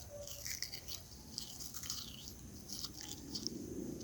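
A person biting into and chewing a steamed pear: faint, irregular small bites and chewing.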